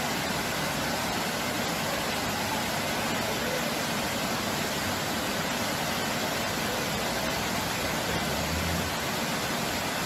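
Muddy floodwater rushing and cascading down a flight of steps, a steady, even rush of water.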